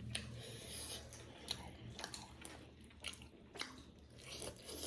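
A person chewing momos (dumplings), with soft wet mouth sounds and irregular small clicks.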